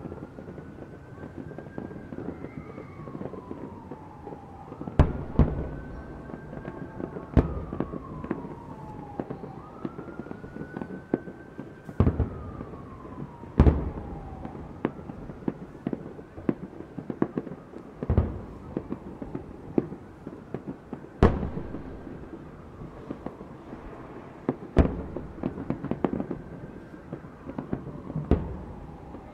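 Distant fireworks booming: about eight loud bangs at irregular intervals a few seconds apart, with smaller pops and crackles between. Under them a siren wails slowly up and down, fading in the second half.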